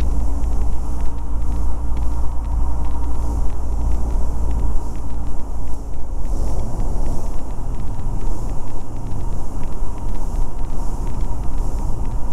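Cessna 172's engine and propeller droning steadily, heard inside the cockpit in flight. The deepest part of the rumble eases slightly about six seconds in.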